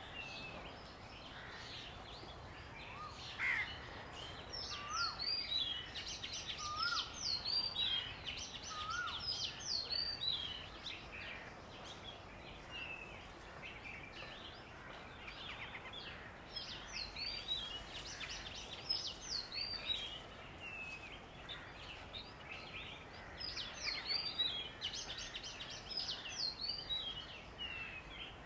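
Wild birds chirping over steady outdoor background noise, in two spells of many quick, swooping high calls: one a few seconds in, the other past the middle. A few lower, short rising calls come in the first spell.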